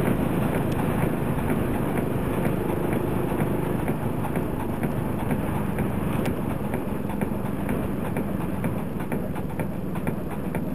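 Vehicle engine and road noise heard from an onboard camera moving along a village street, with light rattling clicks that grow more frequent in the second half as it crosses rough, patched asphalt.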